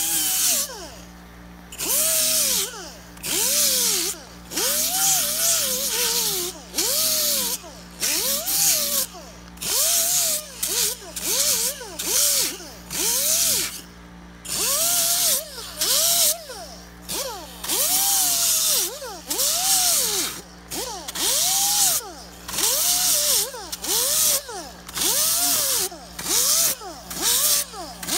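Air-powered angle grinder with a coarse 24-grit disc sanding Styrofoam in short bursts, about one every second or so. Each burst is a loud hiss with a whine that rises and falls in pitch.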